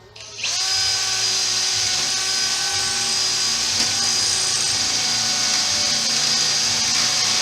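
A high-pitched power tool spins up about half a second in, then runs at a steady speed with a loud whine.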